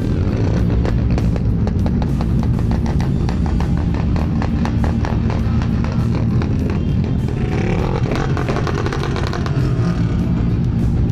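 A pack of motorcycles running together, with loud modified exhausts giving dense, irregular popping and banging over a steady low engine drone; one engine revs up about eight seconds in.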